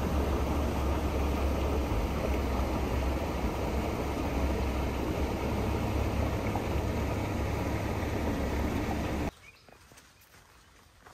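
Creek water rushing over a low concrete crossing: a loud, steady rush with a deep rumble underneath. About nine seconds in it cuts off abruptly, leaving a quiet background with a few faint steps on a dirt trail.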